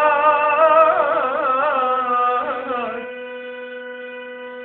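A man singing a slow, wavering line with heavy vibrato over a steady held drone note; about three seconds in the voice stops and the held note goes on alone, quieter.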